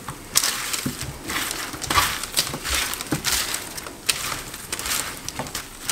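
Hands tossing sliced oyster mushrooms and potatoes in olive oil on a parchment-lined baking tray: irregular rustling, with the baking paper crinkling under the food.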